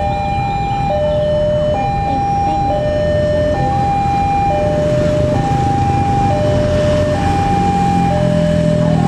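Level-crossing warning alarm sounding a steady two-tone hi-lo signal, each tone held just under a second, as the barrier warns of an approaching train. Traffic noise runs underneath, with a low rumble building near the end.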